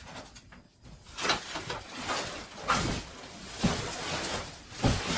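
Styrofoam packing rubbing and squeaking against the cardboard box as a heavy thickness planer is tugged out of it, the foam on the bottom catching. Quiet at first, then from about a second in a run of rough, uneven scrapes.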